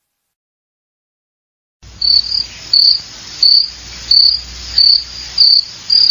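Cricket chirping in evenly spaced chirps, about three every two seconds, over a soft steady hiss, starting about two seconds in after silence.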